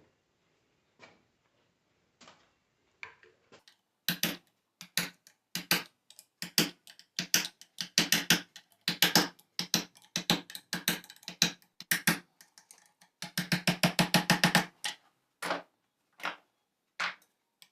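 Quick series of metallic clicks and taps from an alternator rotor's ball bearing being worked apart by hand, its steel balls being shoved to one side of the race. The clicks begin about four seconds in and run together into a fast rattle near the end.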